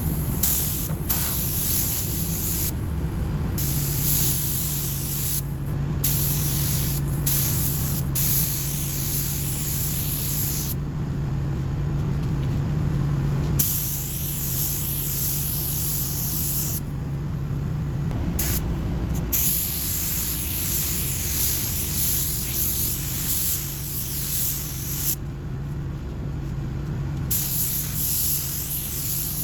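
Compressed-air gun hissing in repeated bursts of one to several seconds as the trigger is pulled and released, with a steady low hum underneath.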